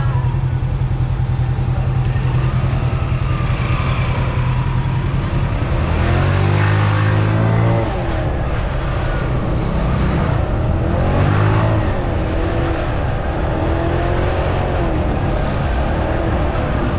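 Italika D125 125cc mini scooter engine running steadily while cruising, with wind and road noise. The engine's pitch shifts and it grows a little louder about six seconds in.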